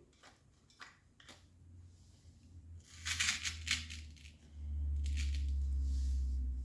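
Handling noises of craft work: a few light clicks, then a crackly rustle like crinkling material, followed by a steady low rumble for the last two seconds.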